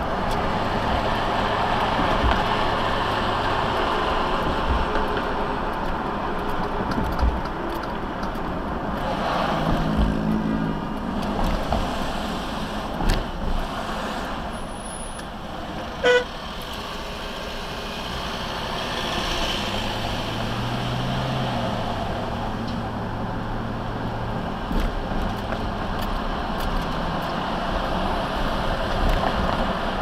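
Steady road and engine noise heard from inside a car driving on a busy expressway. About halfway through, a very short horn beep sounds, the loudest moment.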